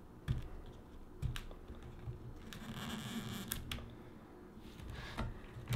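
Handling noise from working a laptop battery free: light clicks, taps and scrapes of fingers on the battery pack and chassis, with a short rasp of adhesive tape peeling up about three seconds in.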